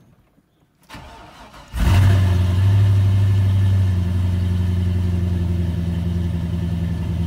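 Chevrolet LQ4 6.0-litre V8 starting: it catches about two seconds in, flares briefly, then settles into a steady idle. This is its first start on a newly installed AEM high-flow fuel pump.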